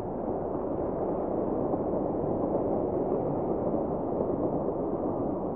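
Audience applauding steadily, an even clatter of many hands.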